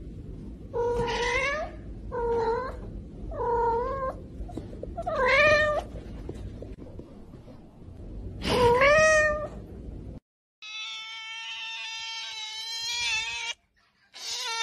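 A white long-haired cat meowing five times, short calls that rise and fall in pitch. About ten seconds in, a tabby cat gives a steady yowl of about three seconds, then starts another loud meow near the end.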